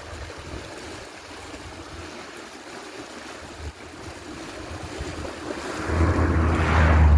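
Steady rush of moving water with wind on the microphone; about six seconds in, a low droning engine-like hum with a swelling hiss grows loud and peaks near the end.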